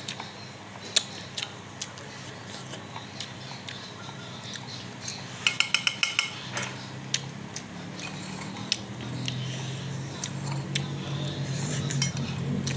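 Cutlery clicking and clinking against a bowl or plate during a meal of noodles, with scattered single taps and a quick run of about eight ringing clinks about halfway through.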